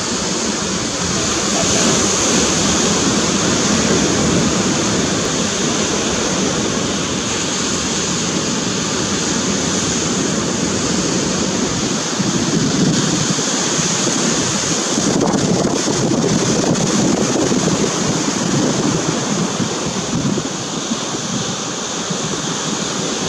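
Wind gusting against the microphone over a steady rush of sea and surf.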